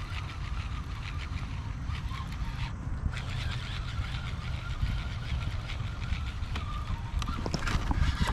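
Baitcasting reel being cranked on a steady retrieve, a faint even whir from its gears, over a low rumble of wind on the microphone.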